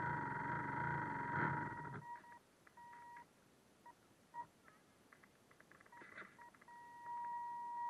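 Radio-controlled boat's electric motor whine, a high steady tone, with water rushing past for the first two seconds. The boat then eases off and the whine breaks into short on-off beeps, coming back steady near the end.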